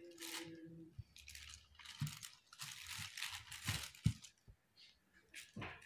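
A kitchen knife cuts through a slab of homemade soap made from used cooking oil and caustic soda, in several short scraping strokes, with the plastic sheet underneath crinkling.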